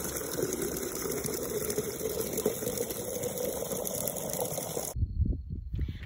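Water from a yard hydrant gushing into a watering can, the pitch of the filling slowly rising as the can fills. It cuts off abruptly about five seconds in.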